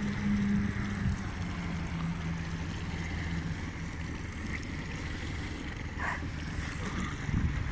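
Small motorboat engine running with a steady low hum, with wind buffeting the microphone and water lapping.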